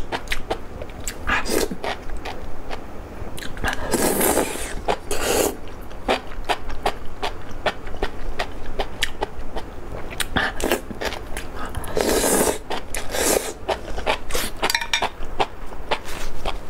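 Close-miked eating of spicy enoki mushrooms: wet mouth clicks of chewing throughout, broken by several slurps of the strands, the longest about four and twelve seconds in.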